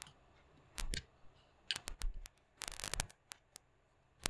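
Metal USB-A plug clicking and scraping against a USB port on an aluminium PX UCH50 hub as it is pushed at the port without seating. Scattered short clicks, with a quick cluster of them about two and a half seconds in.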